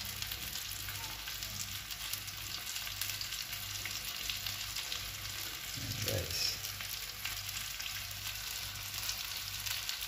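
Breaded chicken breast cutlets frying in a little olive oil in a nonstick pan: a steady sizzle full of fine crackles. A brief low thump comes about six seconds in.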